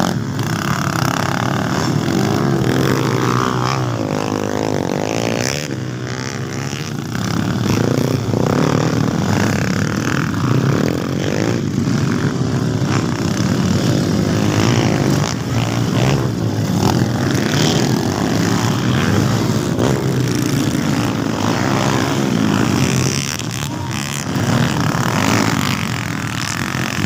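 Several motocross dirt bikes racing, their engines revving up and down in overlapping rising and falling whines as they pass.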